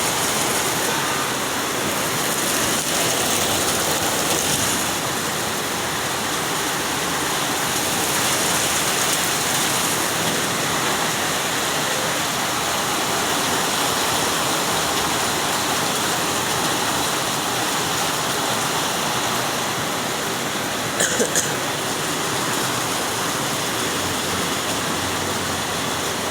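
Steady, even rush of heavy rain and flowing floodwater. A brief clatter sounds about 21 seconds in.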